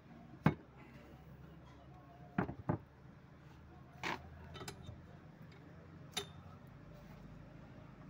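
Steel parts of a Massey Ferguson 375 tractor's hydraulic power-steering cylinder (power jack) knocking and clinking against each other and a metal bench as it is handled and fitted, about six sharp metallic knocks, the loudest about half a second in and a quick pair a couple of seconds later.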